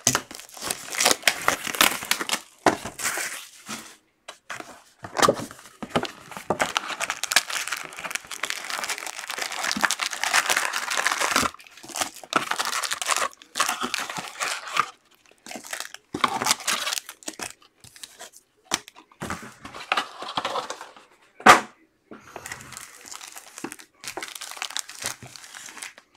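Foil card packs from a Donruss Optic football box crinkling and rustling as the box is opened and the packs are pulled out and stacked, with one sharp snap about three-quarters of the way through.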